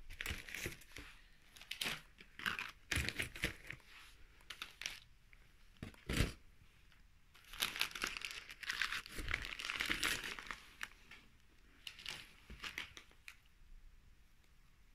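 Gift-wrapped presents being pushed into a cardboard box: wrapping paper crinkling and rustling against the cardboard in irregular spells, with a couple of dull knocks. It dies down near the end.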